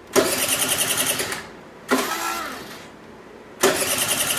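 A 50cc two-stroke scooter's electric starter cranks the engine in two bursts, one about a second long near the start and another from about three and a half seconds in. It spins with a fast, even rhythm, and the engine never catches because the ignition gives no spark.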